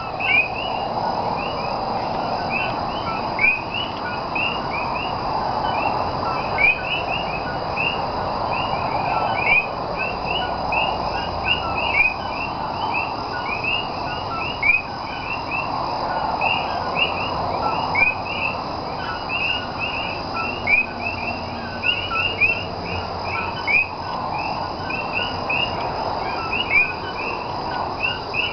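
A chorus of common coquí frogs calling, many overlapping two-note "co-kee" calls, each a short low note followed by a quick rising chirp, several a second. A steady high drone runs underneath.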